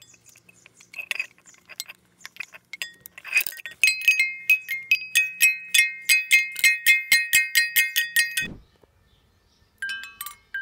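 Small red metal cowbells on a hanging garden bell, shaken so they clang in quick succession, about five strikes a second for some four seconds, then stopped sharply. A few single clanks follow near the end as it swings. Before the shaking there are small handling clicks.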